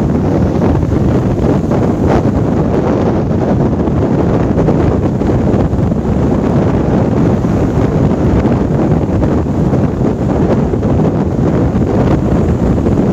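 Strong wind buffeting the microphone on a sailboat sailing upwind in a strong breeze, a loud, steady rush with waves washing along the hull beneath it.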